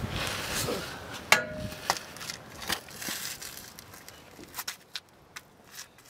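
Scattered small clicks and knocks of hands and tools working under a car, the loudest about a second in, growing fainter until they fade out.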